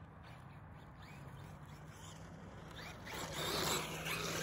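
Traxxas Maxx RC monster truck's tyres tearing through loose dirt and gravel as it lands and slides. A gritty spray of grit rises about three seconds in and is loudest just after.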